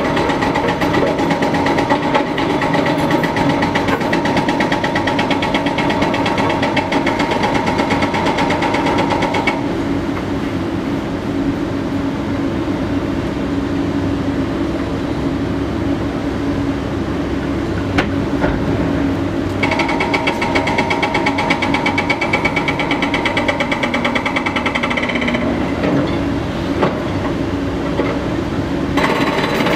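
Hydraulic breaker on a Cat 330DL excavator pounding rock with rapid, even blows in bursts. It stops about a third of the way in, starts again about ten seconds later, pauses briefly near the end, then resumes. Excavator diesel engines run throughout.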